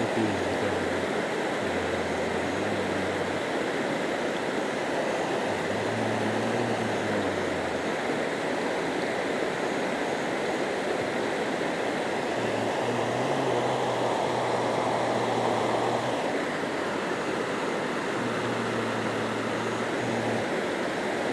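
Shallow river running fast over rocks and stones, a steady rushing of rapids. A faint low hum comes and goes several times underneath.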